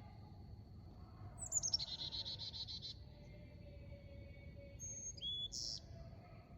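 Wild songbird singing: a fast trill of repeated notes sliding down in pitch for about a second and a half, then a shorter call that steps down in pitch a few seconds later.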